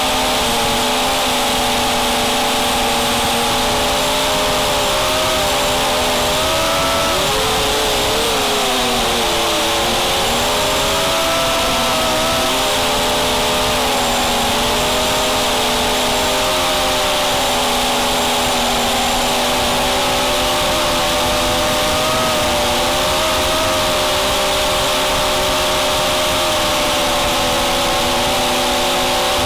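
QAV250 racing quadcopter's brushless motors and propellers whining, heard from a camera on the craft itself. The pitch dips and rises several times in the middle stretch as the throttle is worked, then holds fairly steady.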